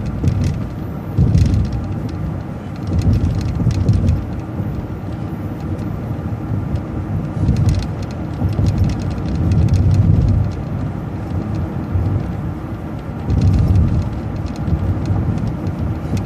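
Road and engine noise of a transit bus driving, heard from inside: a steady low rumble that swells and eases several times, with light rattles.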